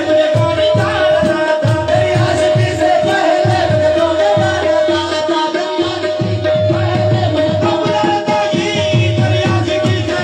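Qawwali music: fast, steady tabla drumming under sung voices, with one note held throughout.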